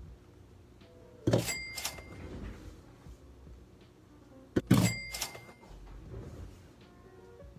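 Two sharp knocks about three seconds apart, each with a short bright metallic ring, from kitchenware being handled.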